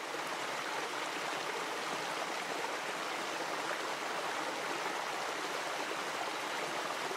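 Small stream flowing and splashing over rocks in a low cascade, a steady rush of water.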